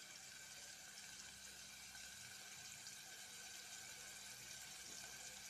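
Faint, steady sizzle of sliced onions frying in oil in an aluminium pot, being browned.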